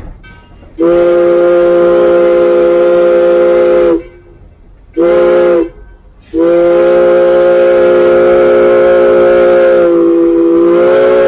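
Steam locomotive whistle blown from the cab by pulling its overhead cord: a long blast, a short one, then a long one held about five seconds. Several notes sound together as one chime.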